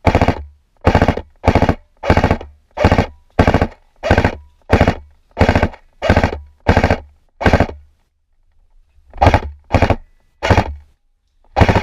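Airsoft electric rifle firing a long string of short full-auto bursts, about one every half-second, each a quick rattle of shots. The firing stops for about a second and a half near two-thirds of the way in, then four more bursts follow.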